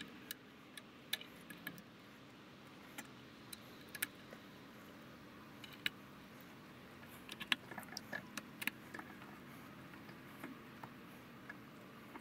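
Scattered light clicks and taps of hand tools and parts being handled while ignition coil packs are fitted to the engine, irregular and clustered most thickly about two thirds of the way through, over a faint steady background.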